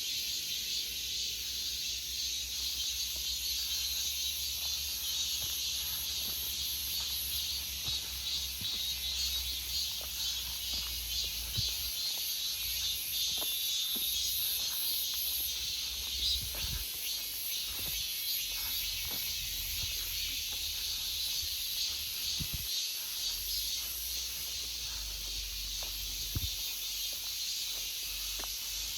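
A chorus of cicadas in a forest, a dense, steady high-pitched buzz with a fast pulsing texture. A low rumble lies underneath, with a few soft knocks.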